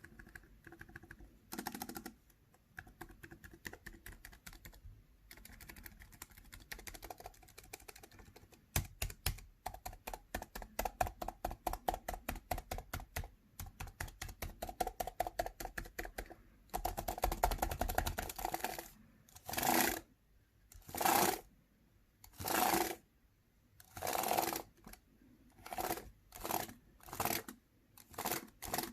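Typing on a computer keyboard: light scattered keystrokes at first, then a long run of fast, steady clicking, followed near the end by separate short clusters of key presses about a second apart.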